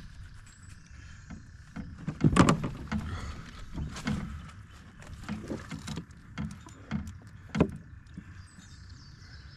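Irregular knocks and thumps from a large blue catfish being handled in a landing net against the side of a boat, the loudest about two seconds in.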